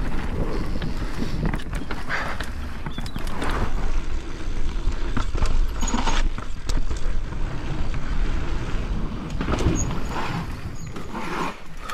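Propain Spindrift enduro mountain bike descending a rough trail: wind rumbling on the helmet camera's microphone over the tyres on dirt and roots, with a run of knocks and clatters from the bike as it hits bumps, heaviest from about four to seven seconds in.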